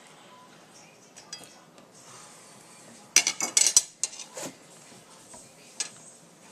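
Dishes and utensils clattering: a quick run of loud clinks and knocks about three seconds in, then a couple of single clinks.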